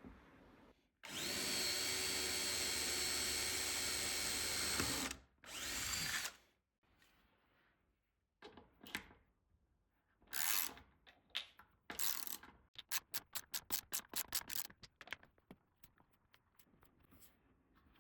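Electric drill running steadily at one speed for about four seconds as it bores into the wooden workbench, its pitch dropping as it stops, then a short second run. Later comes a string of short, quick bursts and clicks.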